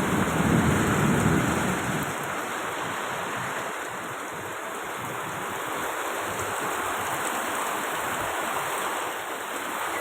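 Steady rushing roar of strong whirlwind wind, a little louder in the first two seconds.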